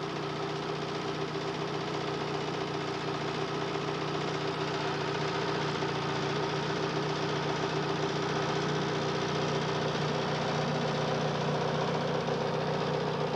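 Race car engine idling steadily, growing slightly louder.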